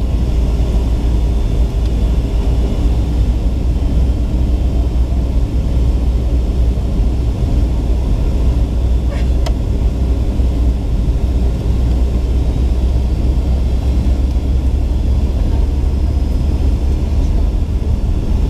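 Steady low cabin rumble of a Boeing 757-300 with Rolls-Royce RB211-535C engines, heard from inside the cabin on the approach to landing. There is one brief sharp click about halfway through.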